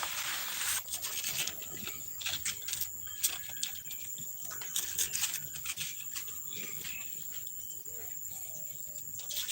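Insects chirring steadily in the background, with a short hissing noise right at the start and scattered rustles and clicks throughout.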